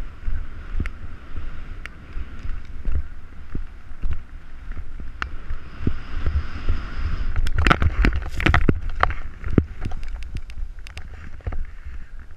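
Snowboard sliding and scraping over chopped-up, tracked snow, with wind buffeting the helmet camera's microphone. Scattered sharp knocks, and a dense run of loud clattering knocks in the middle as the board rides over the rough snow.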